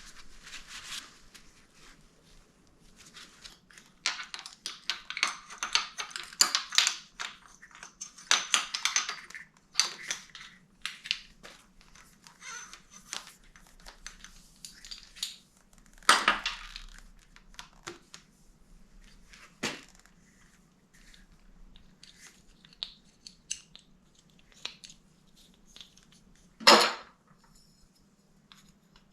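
Hand work on motorcycle parts: irregular clinks and clicks of small metal parts with rustling, a sharp knock about halfway through and a louder knock near the end.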